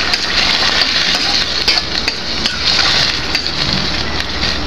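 Vegetables and sauce sizzling in a stainless steel pan while a metal ladle stirs them, with the ladle scraping and clicking against the pan now and then.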